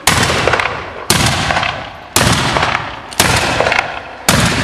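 Black-powder muskets fired one after another as a salute: five shots about a second apart, each a sharp crack with a long echoing tail.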